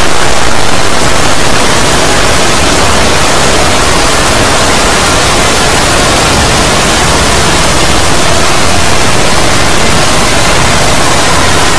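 Loud, steady static-like noise filling the whole range from deep bass to high hiss. It is a layered noise effect added over a logo's soundtrack until the original audio is buried.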